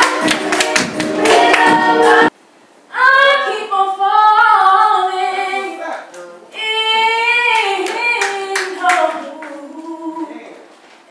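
A group of young female singers sings into microphones over a backing track with a beat, which cuts off suddenly about two seconds in. After a brief gap, a single young woman sings unaccompanied into a microphone, with a few hand claps.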